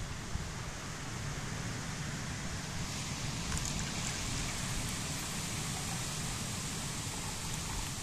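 Tea poured from a steel mug into a plastic cup, a steady trickling splash starting about three seconds in, over wind rumbling on the microphone.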